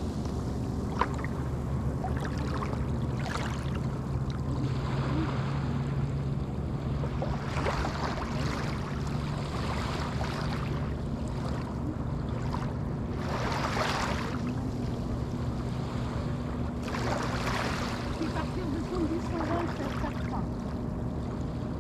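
Small Atlantic waves breaking and washing up a sandy beach, the surf swelling louder three times, over a steady low hum.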